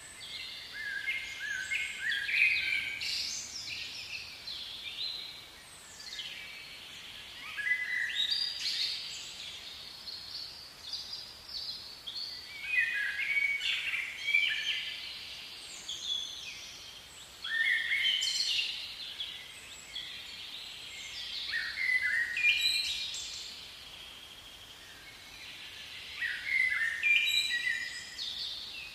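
Songbirds chirping and singing in busy, repeated phrases every few seconds over a faint outdoor background.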